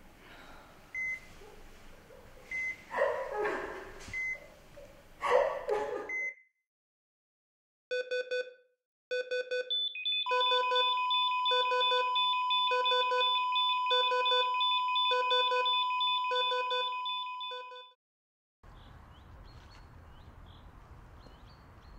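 Patient heart monitor beeping about every second and a half, then, after a short silence, monitor alarm beeps pulsing about once a second over a steady flatline tone, the sign that the patient's heart has stopped; the tone fades and cuts off near the end. After it comes faint outdoor ambience with birds chirping.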